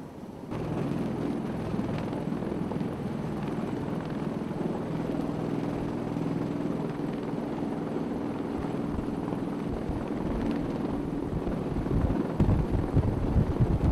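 MV-22 Osprey tiltrotor in helicopter mode, its two proprotors and turboshaft engines making a steady droning hum while it hovers low. About twelve seconds in it grows louder, with heavy gusty buffeting from the rotor wash as it sets down in a cloud of dust.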